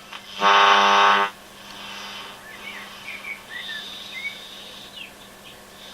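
Speaker of an International HiFi transistor radio being tuned across the band: a loud, steady buzz for about a second near the start, then faint chirping whistles and squeals of interference between stations, over a steady low hum.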